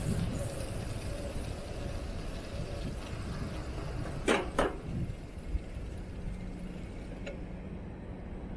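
Trek hybrid bicycle rolling along a city street: a steady low rumble of tyres and air, with two sharp clicks close together a little past the middle.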